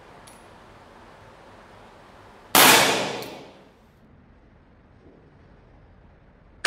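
A Webley MkVI CO2 pellet revolver firing a .177 pellet: one sharp, loud report about two and a half seconds in, with an echo that dies away over about a second. A faint click comes just before it, and a second sharp report with a ringing metallic edge starts at the very end.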